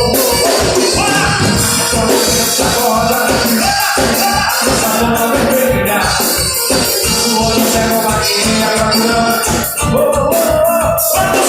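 Loud music with a singing voice over a fast, steady beat of about four strokes a second.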